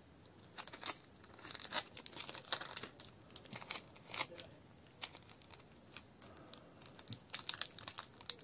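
Clear plastic film crinkling and rustling in the hands in irregular short crackles, as it is wrapped around a small bundle of battery cells.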